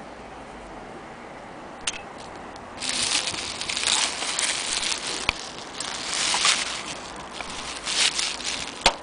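Bubble wrap crinkling and crackling as a metal clock movement is shifted about on it, starting about three seconds in, with scattered sharp clicks and one sharp click near the end.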